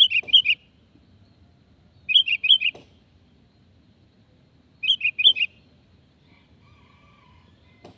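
Sooty-headed bulbul (kutilang) singing three short phrases of about five quick, bubbly notes each, spaced two to three seconds apart. It is a lure call meant to draw other bulbuls to answer.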